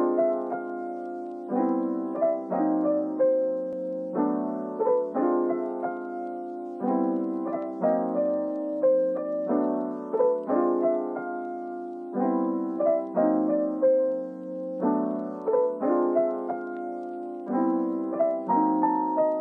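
Background piano music: a melody over sustained low chords, the notes and chord changes repeating in a steady pattern.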